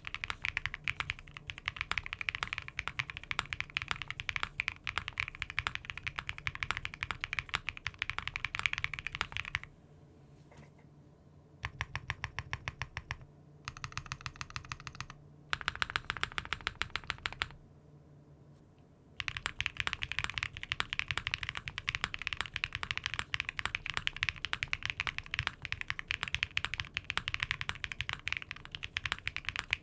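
Fast, continuous typing on a mechanical keyboard fitted with Cherry-profile keycaps, a rapid stream of key clacks. It breaks off briefly twice, about a third of the way in and again about two thirds in, and the stretches in between vary in loudness.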